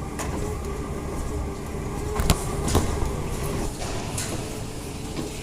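Stair stepper machine running under a person climbing, with a steady mechanical rumble and hum and two sharp clacks about halfway through.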